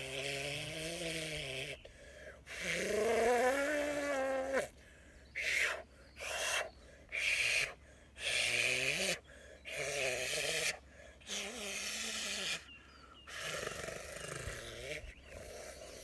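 A man's voice performing wordless light-language vocalisation in a string of separate phrases. Some are drawn-out tones that waver and glide up and down in pitch; others are short, breathy hissing bursts with brief pauses between them.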